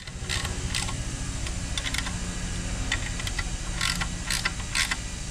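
Irregular light clicks and taps of bolts and fan parts being handled as a plastic engine cooling fan is fitted to its spacer, over a steady low hum.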